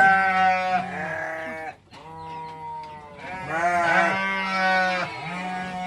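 Several goats bleating, their calls overlapping, with a brief pause about two seconds in before the bleating picks up again.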